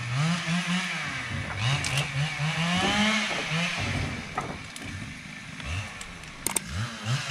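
An engine revving up and down over and over in short bursts, with a few sharp wooden knocks as acacia logs are handled.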